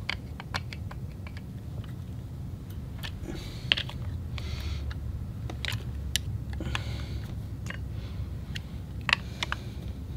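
Screwdriver turning and snugging small screws into a carburetor's top cover: scattered light metal clicks and ticks, over a low steady hum.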